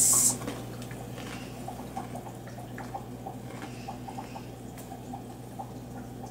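Faint, irregular crunching of someone chewing ridged potato chips (Simba Mexican chili), over a steady low hum.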